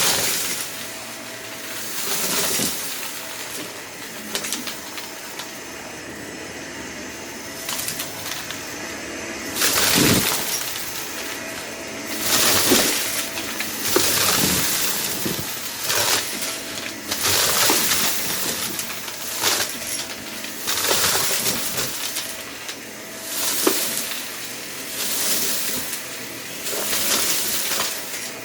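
Vacuum cleaner sucking up a dry, crunchy mess in repeated back-and-forth passes, a crackling rush of debris rattling through the nozzle with each pass.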